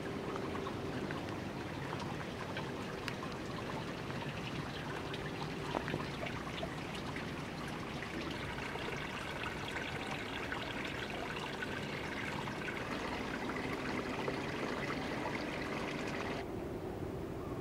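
Small stream of water trickling and splashing steadily through a stone drain channel and over debris. The bright trickling thins out abruptly near the end.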